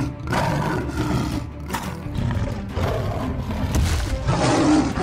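Dinosaur roaring and growling over background music.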